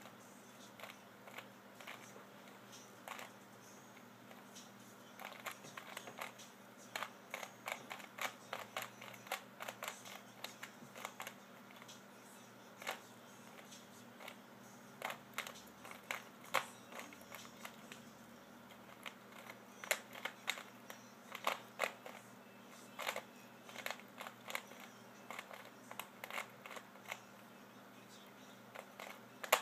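Plastic 3x3 Rubik's Cube being turned by hand while being solved: quick, irregular clicking and clacking of the layers, in flurries with short pauses between them.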